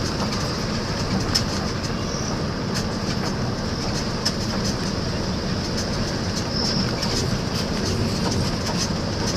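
Steady road and engine noise of a vehicle driving along a paved road, with scattered light clicks and rattles.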